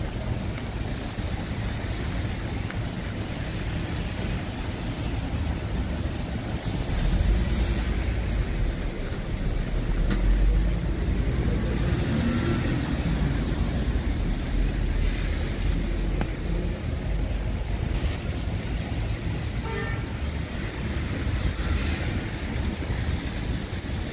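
Street traffic on a rain-wet road: cars passing with tyre hiss over a continuous low rumble, which swells louder for several seconds partway through as a vehicle goes by.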